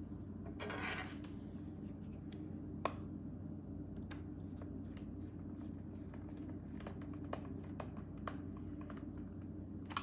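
Phillips screwdriver turning a small screw into the plastic housing to fasten the battery into a Dyson V8 stick vacuum: faint scattered clicks and scraping over a steady low hum, with one sharper click about three seconds in.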